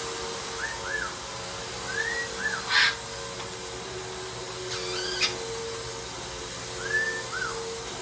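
Parrots chirping: short rising-and-falling whistles, mostly in pairs, and a brief harsh call, over a steady whirring hum. A short burst of noise about three seconds in is the loudest sound.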